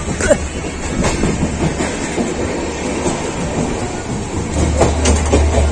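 Passenger express train running along the track: the rumble of wheels on rails with the clack of rail joints. A low drone under it grows stronger about four and a half seconds in.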